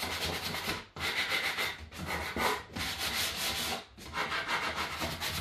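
Hand sanding block scrubbing quickly back and forth over the painted wooden leg of a cabinet in short spells with brief pauses, distressing the dry paint so the corners wear back toward the wood.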